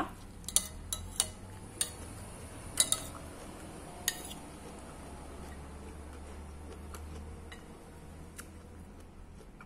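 Metal cutlery clinking and scraping on a ceramic plate: a run of sharp clicks in the first four seconds, then quieter.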